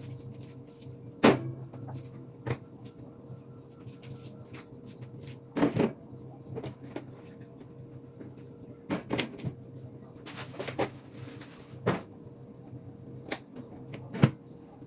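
Scattered knocks and clacks of household items, doors or shelves being handled and set down, over a steady low hum. There is a short rustling hiss about ten seconds in.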